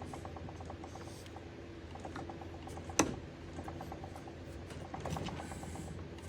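Pocket knife blade worked on its riveted pivot, giving quick, evenly spaced metallic ticking like a ratchet and one sharp click about three seconds in, over a steady low hum.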